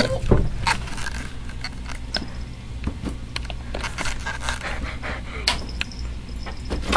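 Rustling, scraping and scattered clicks from handling and movement while a cat is lifted onto a high wooden shelf, over a steady low hum.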